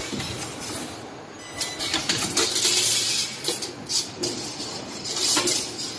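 Automatic pneumatic flat wire bending machine working: short bursts of air hiss with metallic clinks and clicks.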